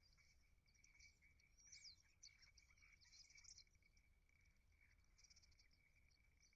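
Faint chirping and twittering of small birds, with a few quick sweeping calls, over a steady faint high tone.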